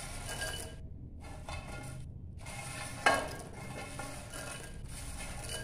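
Crisp fried bread cubes tipped off a paper towel into a glass bowl, tumbling and tapping against the glass, with one louder clatter about three seconds in.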